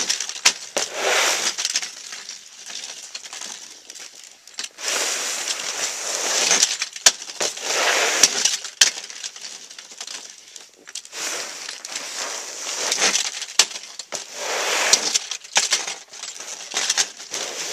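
A wheeled, man-powered snow plow blade being pushed through snow on a paved driveway in repeated strokes: each push is a crunching scrape lasting a second or two, with short pauses between strokes and a few sharp clicks near the middle.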